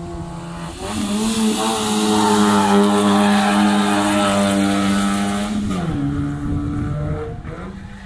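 Rally car engine under hard acceleration on a hill climb. The pitch steps up about a second in and holds high and loud, then falls away about six seconds in.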